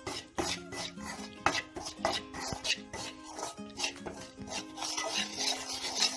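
Slotted steel spoon scraping across a stainless steel kadai, stirring raw rice flour as it dry-roasts, in quick strokes about three a second. Background music plays under it.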